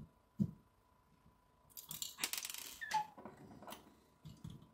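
Hands handling small model-kit parts on a table: a light knock, then about a second and a half of rustling and crinkling, with a few small clicks after.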